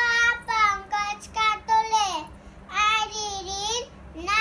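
A young girl's high voice in drawn-out sing-song phrases with held and gliding notes, two stretches with a short break in the middle.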